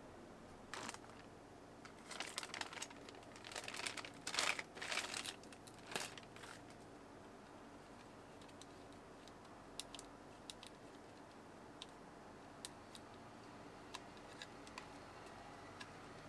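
Packaging being handled: crinkling and rustling in several bursts during the first seven seconds or so, then scattered light clicks.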